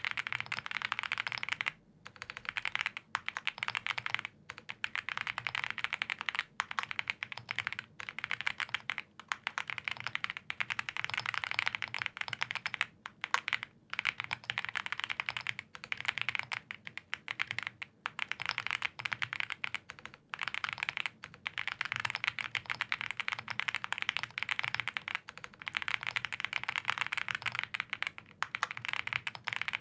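Continuous fast typing on a custom mechanical keyboard with lubed Gazzew Boba U4T tactile switches on a POM plate and GMK keycaps: dense runs of keystrokes with brief pauses every second or two.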